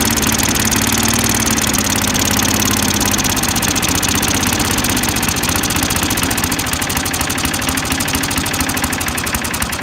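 Small single-cylinder lawn mower engine idling on a GEET reactor instead of a carburetor, burning a mostly-water mix with a little gasoline and oil. Its idle is being turned down, so the firing slows and gets a little quieter toward the end.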